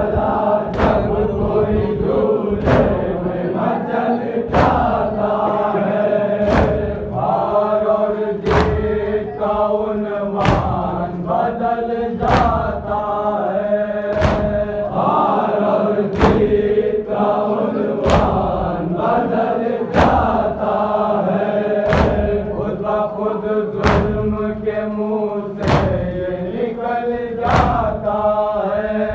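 A noha, a Shia lament, chanted by male voices with a chorus, over a steady beat of strikes about once a second, every other strike stronger.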